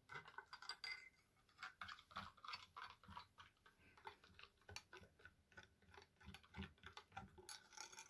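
Spoon clinking and scraping against a drinking glass while stirring liquid: a faint run of irregular light clicks.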